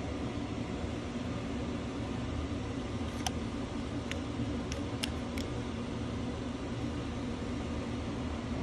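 A steady mechanical hum, as from a fan or running appliance, with a few short light clicks between about three and five and a half seconds in.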